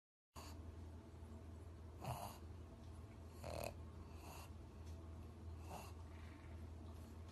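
A pug snorting through its nose in short puffs, four in a few seconds, over a steady low hum.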